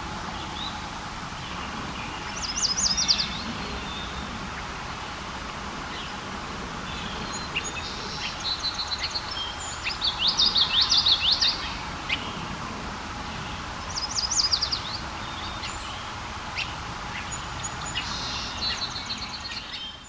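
Yellow warbler singing: three short bright phrases of quick sweeping notes, about two and a half, ten and fourteen seconds in, the middle one the longest. Fainter songs of other birds and a steady background hiss run behind.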